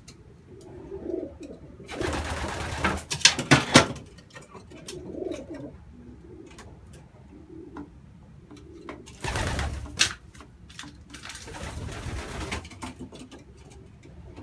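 Racing pigeon hens cooing softly in a wooden loft, with a few loud rustling, clattering bursts and scattered light clicks in between.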